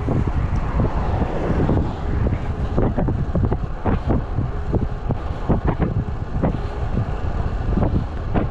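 Wind buffeting a camera's microphone while riding a road bike: a steady low rumble broken by irregular gusts.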